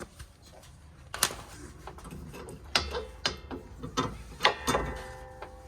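Steel hand tools working on a sway bar link's nut and ball joint: a series of sharp metal clicks and knocks, with one short metallic ring near the end.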